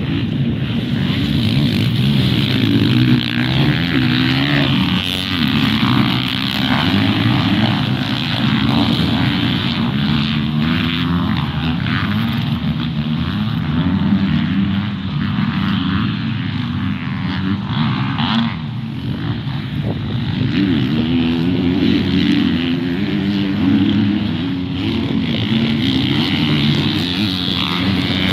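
A pack of motocross dirt bikes racing past. Several engines are revving and shifting at once, and their pitches rise and fall with the throttle.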